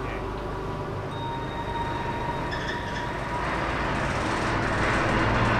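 Elevator car running up its shaft: a steady mechanical rumble with a thin whine, growing louder over the last couple of seconds.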